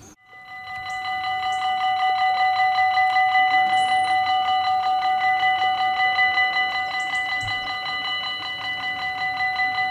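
Level crossing warning bell ringing with a rapid, even pulse as the crossing barriers are lowered, signalling an approaching train. It starts just after the beginning and swells to full strength within about a second.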